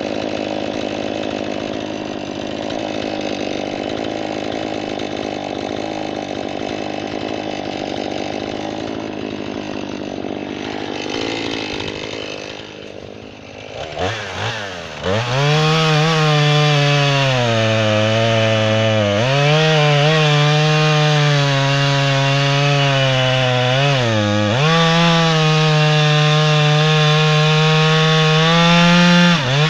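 Jonsered 2240 chainsaw running steadily, easing off about twelve seconds in, then revved hard to full throttle and cutting through red oak, its pitch dipping twice under load.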